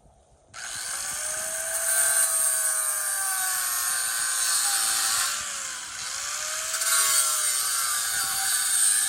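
Angle grinder starting up about half a second in and grinding into steel, cutting through the weld that holds a hydraulic cylinder eye to the barrel. Its whine dips and recovers as the wheel bites, easing briefly about halfway through.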